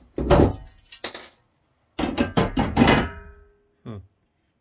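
Clattering knocks as the circuit board of a Netgear FVS318 firewall is lifted out of and bumped against its steel housing, the second set of knocks followed by a short metallic ring that dies away; one more light knock near the end.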